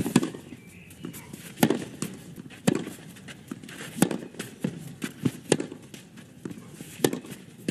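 Tennis rally on a clay court: tennis balls struck by rackets back and forth, each hit a sharp pop about every second to second and a half, with softer ball bounces and footfalls between the hits.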